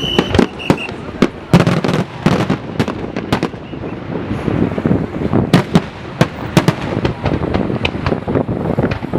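Fireworks display: a dense, irregular string of bangs and crackling reports from bursting shells, with heavier clusters of blasts.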